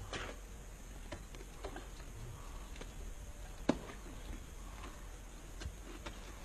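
Ice climbing on a vertical ice wall: a few scattered, sharp knocks of crampons and ice tools biting into the ice, the loudest a little past the middle, over a quiet background.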